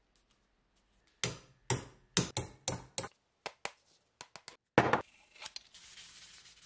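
About a dozen sharp hammer blows at an irregular pace, the loudest near the end, as a ball peen hammer's head is worked on its handle. Then steady hand sanding with sandpaper starts.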